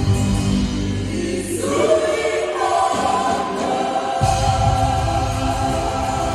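Gospel choir singing with instrumental backing. The low bass part drops away about two seconds in, leaving mostly voices, and comes back in a little after four seconds.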